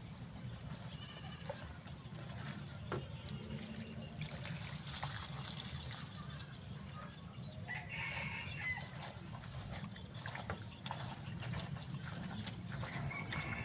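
Water poured from a large plastic water gallon splashing into a metal bowl of greens as they are rinsed, over a steady low rumble. A short animal call sounds about eight seconds in.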